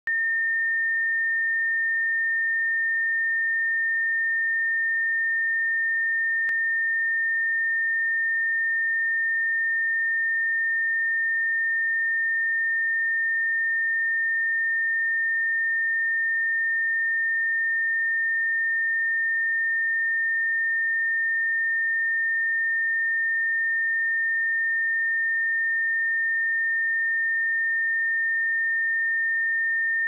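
A pure 1817 Hz sine-wave test tone, a single steady high pitch that holds unchanged throughout.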